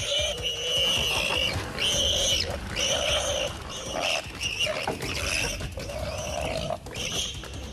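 An animal crying out over and over in high, pitched calls, each about half a second long and coming roughly once a second.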